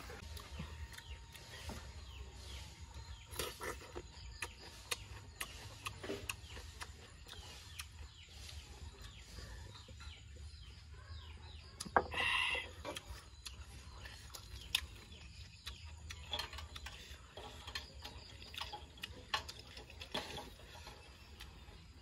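Eating and table-handling sounds: scattered small clicks and taps of utensils, a glass and tongs. About halfway through, a sharp tap is followed by one short pitched animal call.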